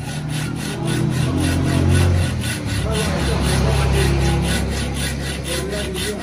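Hand saw cutting wood in quick, even strokes, about four a second, over a steady low hum.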